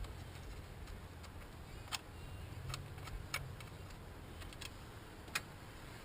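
A handful of sharp, irregular clicks and light taps of hand work on engine parts, over a faint low hum.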